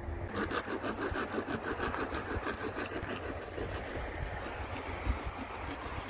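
Hand saw cutting through a black plastic water pipe in quick, even back-and-forth strokes, sharper in the first three seconds and softer after.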